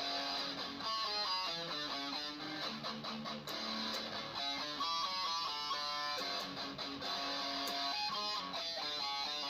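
Fender Stratocaster electric guitar playing riffs of quick single notes in repeating phrases, with a short break in the notes about three and a half seconds in.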